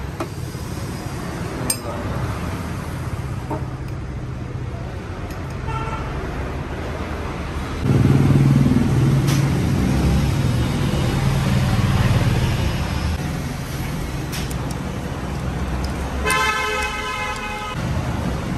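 Road traffic: a vehicle engine runs louder for several seconds midway, a short horn beep comes about six seconds in, and a horn honks for about a second and a half near the end.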